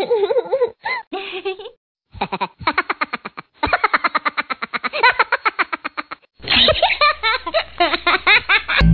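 People laughing in long runs of quick, repeated bursts, with a high voice swooping up and down near the start.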